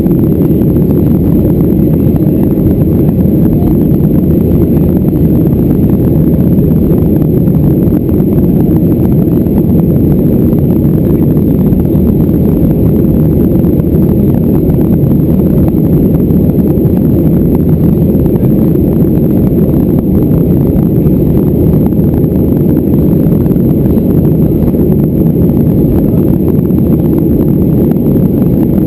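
Steady cabin roar of a Boeing 737-400 in the climb: the CFM56-3 engines and rushing airflow make a loud, even, low rumble heard from inside the passenger cabin.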